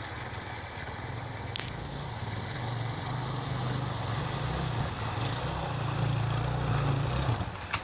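Off-road motorcycle engine running as the bike rides up a shallow stream, its wheels splashing through the water. It grows louder in the second half as the bike comes closer.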